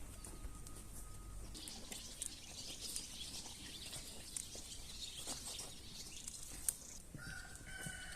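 Farmyard sounds with small birds chirping and scattered light clicks and knocks. Near the end a long, steady, high-pitched animal call begins.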